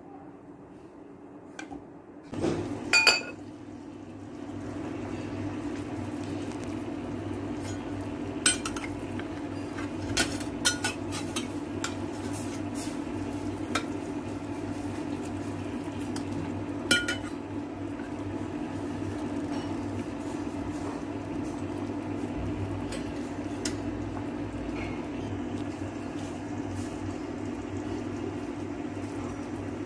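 A metal ladle stirring a pot of chicken soup, clinking sharply against the ceramic pot a handful of times, loudest in a pair about three seconds in and again around seventeen seconds. Beneath it a steady electric hum from the cooktop runs on.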